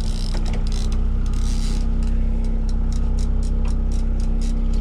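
Boat engine running steadily under a quick, even clicking of a fishing reel's ratchet, about four or five clicks a second, as a salmon is played on a trolling rod.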